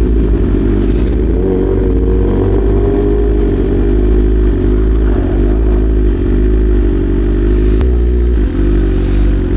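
BMW M1000RR's inline-four engine running steadily at low revs, its pitch drifting gently up and down.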